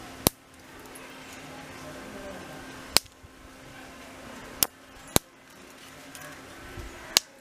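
Dried seed pods soaking in water in a plastic dish bursting open one at a time. Each gives a single sharp snap, five snaps a second or more apart, as the wet pod splits and flings its seeds out.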